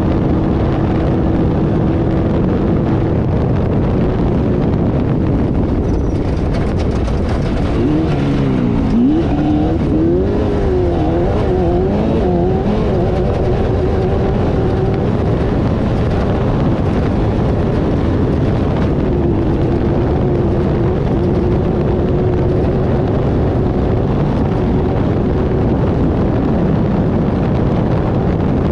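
Off-road race car engine running hard at speed over heavy, constant driving noise. About a quarter of the way in, the engine note swings rapidly up and down several times for a few seconds, then settles back to a steady pitch.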